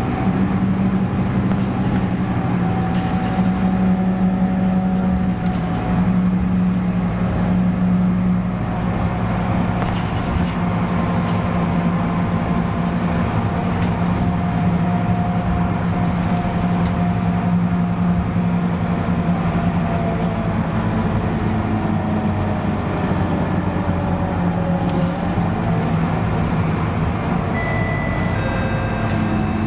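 Inside a 2013 Scania K280UB city bus under way: its diesel engine running steadily with road and tyre noise and occasional knocks, the engine pitch shifting slightly a little after twenty seconds. A few short high electronic tones sound near the end.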